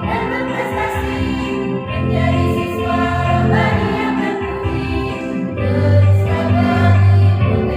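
Primary-school choir singing a school march anthem together, with held notes over a steady bass accompaniment.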